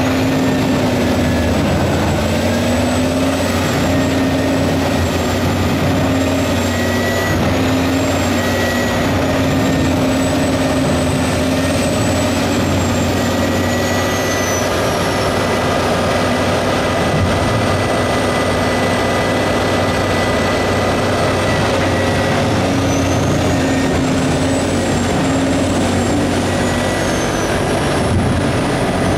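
CBI 6400T tracked horizontal grinder with its Cat 3412E diesel engine running hard while grinding wood into chips: a loud, steady machine roar whose engine note wavers slightly as it takes load.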